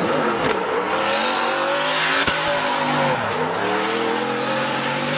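A drift car's engine revving high through a slide, with tyres squealing under it. The pitch drops briefly near the start and again a little past three seconds, then climbs back.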